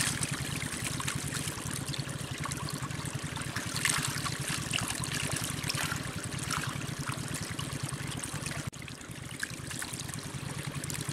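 Shallow canal water trickling and flowing steadily past a bamboo fish trap, with scattered small splashes.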